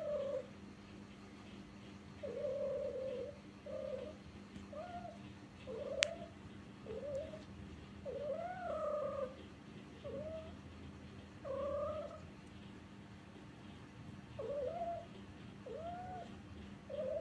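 Female tortoiseshell cat yowling in a string of short calls that rise and fall in pitch, roughly one a second, with a sharp click about six seconds in. The owner suspects she is in heat and calling to a tom.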